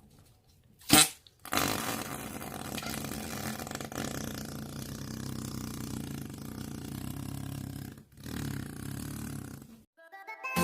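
Noise putty (slime) being squeezed and pressed, letting out a long, low fart-like squelching noise, broken by a brief pause and then a shorter second one. A sharp loud pop comes just before the first long noise.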